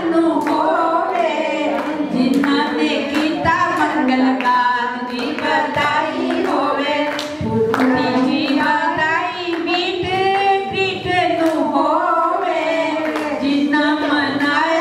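A group of voices singing a song together without instruments, the melody wavering and held on long notes.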